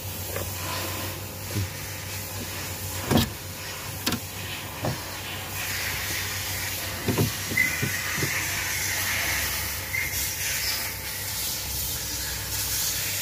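Plastic pry tool levering the upper dashboard trim of a Mercedes-Benz W222, with several sharp clicks and knocks as the trim is worked loose. Underneath is a steady hiss that grows louder about halfway through.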